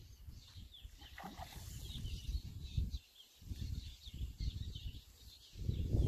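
Wind rumbling unevenly on the microphone in gusts, dropping away briefly about three seconds in, with faint, high bird chirps above it.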